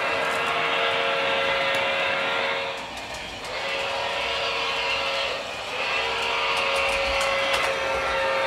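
Model locomotive's onboard sound system sounding a multi-note chime signal in three long blasts with short breaks between. Underneath is the rumble of the toy trains running on the track, with scattered clicks.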